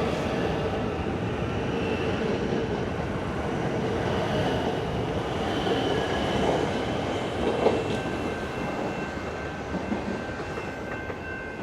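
Electric suburban train running at the platform, its noise steady, with a few thin high whining tones joining in over the last few seconds and one brief louder knock about two-thirds of the way through.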